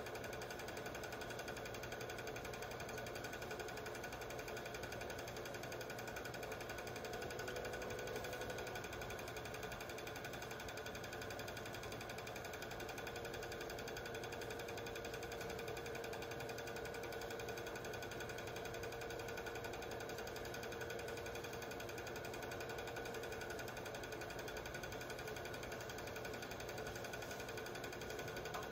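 Cine film projector running: a steady, rapid mechanical clatter from its film-advance mechanism and motor, with a faint steady hum.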